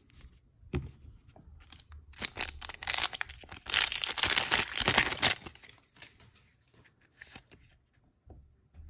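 Foil wrapper of a Magic: The Gathering booster pack being torn open and crinkled: a dense crackling rustle from about two seconds in, lasting some three seconds, then softer scattered ticks as the cards are handled.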